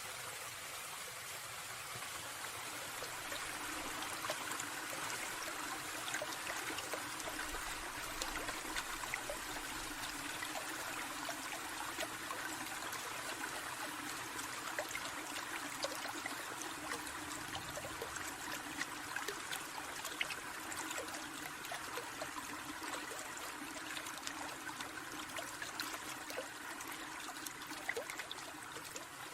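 A small stream trickling and babbling steadily, with many small water splashes and drips.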